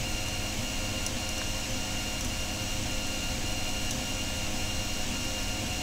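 Steady electrical hum and hiss, with a few very faint short clicks.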